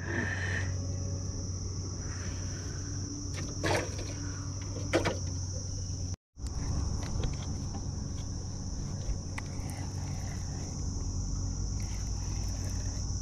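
Steady high-pitched drone of insects in the riverside forest, with a low steady hum underneath and a couple of short knocks about four and five seconds in; the sound cuts out for a moment about halfway.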